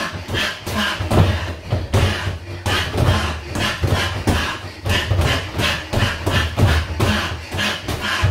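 Boxing-gloved punches landing on a free-standing punch bag in quick combinations of jabs, crosses, hooks and uppercuts, about three or four thuds a second.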